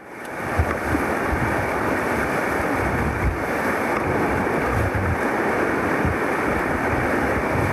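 Whitewater rapids rushing steadily around an inflatable raft, with wind buffeting the microphone in irregular low rumbles.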